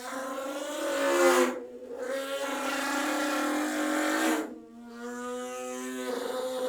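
Car engine sound effect: a steady pitched engine drone held in long stretches, with two short breaks, about 1.7 and 4.5 seconds in.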